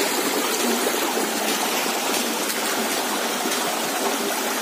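Shallow rocky forest stream running steadily, water rushing over stones through a small cascade.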